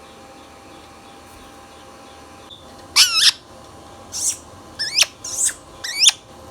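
Indian ringneck parrot giving about five short, loud, high-pitched calls in quick succession, each sweeping in pitch, starting about halfway through.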